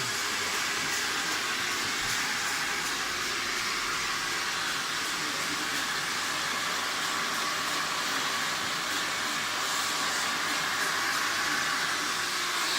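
Hair dryer blowing steadily: a constant airy rush with no change in speed.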